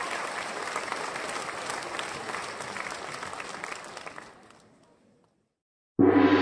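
Audience applauding, fading out about four seconds in. After a moment of silence, music starts abruptly and loudly near the end.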